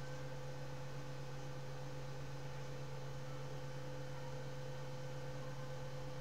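A steady low electrical hum with a few fainter higher tones over a light hiss, unchanging.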